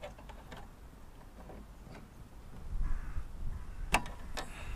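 A spanner clicking and tapping on the small bolts of a two-stroke Flymo mower's carburettor as it is fitted onto them, with one sharp metallic click about four seconds in. A low rumble sits under it.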